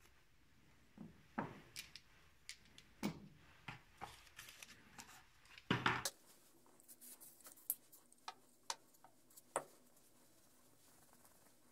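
Metal valve guides for a Mercedes OM615 cylinder head being handled and set down on a cloth-covered bench: a string of light clicks and knocks as they tap against each other and the bench, the loudest cluster about six seconds in.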